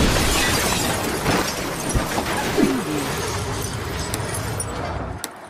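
Intro-animation sound effects: a sudden hit followed by a noisy, shattering wash that slowly fades, with a sharp click near the end.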